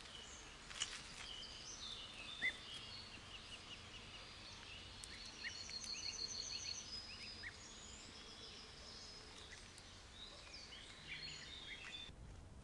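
Faint chorus of small songbirds chirping and trilling, with a quick repeated high trill around the middle and a couple of soft clicks in the first few seconds. The birdsong cuts off shortly before the end.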